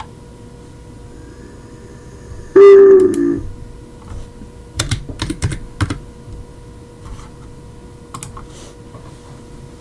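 Computer keyboard typing and clicking in short bursts, with a brief, loud pitched sound lasting under a second about two and a half seconds in.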